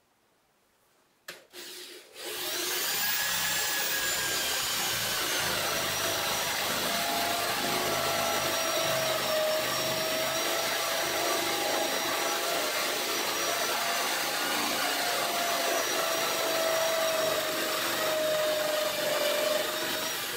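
Power drill with a spade bit boring into a wooden board: after a couple of short knocks about a second in, the drill starts and runs at a steady whine under load, with the rasp of the bit cutting wood.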